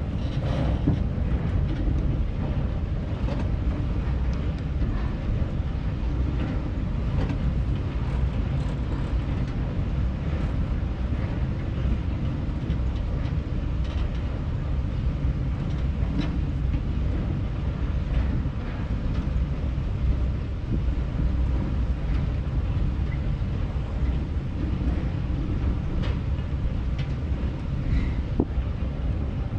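Auto chair ride running along its track: a steady low rumble with a few light clicks scattered through it.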